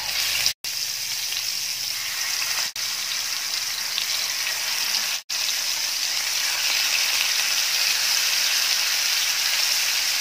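Hot oil in a frying pan sizzling steadily as marinated pearl spot fish are laid into it one by one to shallow-fry. The sizzle cuts out briefly three times.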